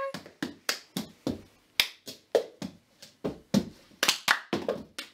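Plastic cups tapped and slapped on the floor between hand claps in the cup game, a steady rhythm of sharp clicks about three times a second.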